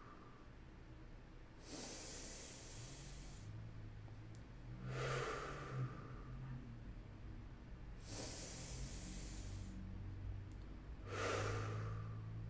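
A man breathing slowly and deeply, in through the nose and out through the mouth: two full breaths, each a long, hissing inhale followed a second or so later by a shorter, softer-toned exhale.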